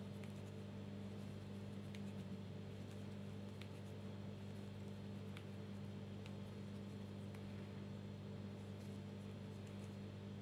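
Crochet hook working yarn: a handful of faint, scattered clicks over a steady low hum.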